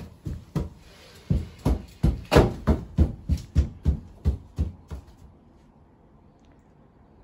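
Quick footsteps on a wooden deck, about three a second, knocking sharply for some five seconds and then stopping.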